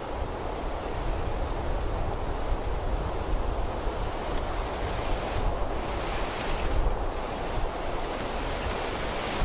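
Wind blowing across the microphone: a steady rushing noise with a heavy low rumble.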